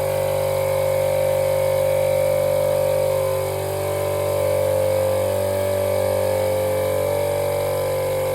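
Electric air compressor running steadily under heavy load, its motor giving a constant hum with a strong steady tone; it is drawing close to 60 amps from its battery.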